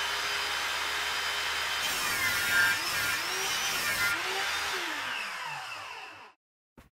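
Table saw ripping a strip of wood, then switched off about four seconds in, the blade whining down in falling pitch as it coasts to a stop. The sound cuts off abruptly near the end, followed by a short click.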